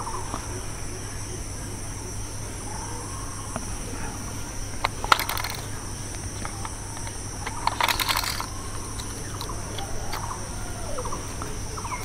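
Eneloop AA batteries being handled and pushed into a Godox TT520 II flash's battery compartment, with a few plastic-and-metal clicks about five seconds in and a cluster of clicks around eight seconds in, as the last cell goes in and the battery door is closed. Under it runs a steady high-pitched insect chirring.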